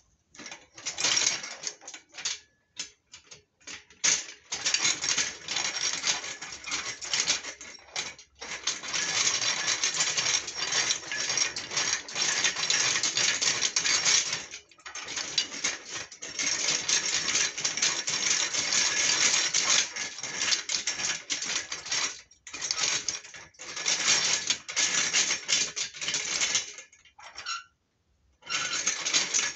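Newly assembled black metal stand's mechanism clicking and rattling rapidly as its handle is worked by hand, in long runs broken by short pauses; the mechanism is working but the stand is not yet fixed in place.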